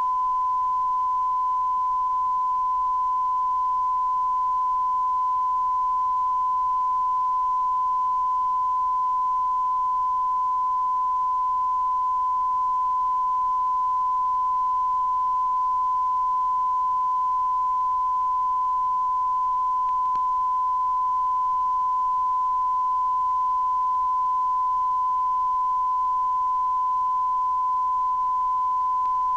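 Steady 1 kHz reference tone broadcast with a television test card: a single pure tone held without a break, over faint VHS tape hiss.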